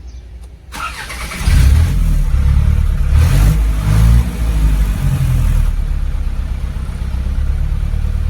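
Isuzu NPR diesel truck engine cranked on the starter and catching after about half a second, running up with a few seconds of uneven revs before settling into a steady idle. It starts normally now that the loose wiring connection has been fixed.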